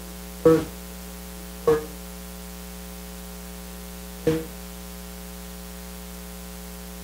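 Steady buzzing electrical mains hum in the microphone and sound system, made of several steady tones. Three brief soft sounds break it, about half a second in, near two seconds and at about four seconds.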